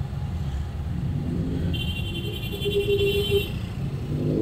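Steady low rumble of road traffic, with a high-pitched tone sounding for about a second and a half a couple of seconds in.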